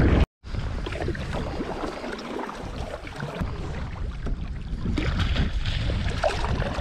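Water lapping and splashing against a plastic sit-on-top kayak hull, with some wind on the microphone. The sound drops out completely for a moment just after the start.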